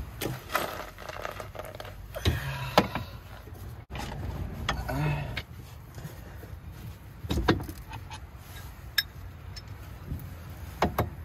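Scattered metal clinks and knocks of hand tools at work on the rear axle, with a few short rattling stretches, while the differential and axle are being unbolted.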